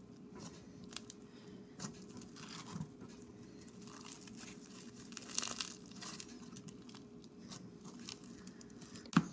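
White fluffy slime being poked, stretched apart and pressed back down by hand, making faint crackling, tearing and squishing sounds, with a sharp knock near the end.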